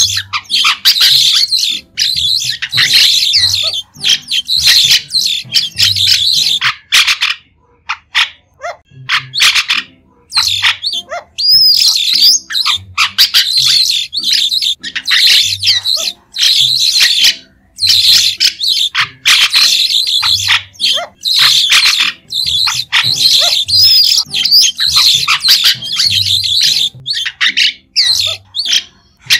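White-shouldered starling (Sturnia sinensis) giving runs of short, shrill, squeaky chattering calls mixed with quick rising whistles. The calls break off into brief pauses several times.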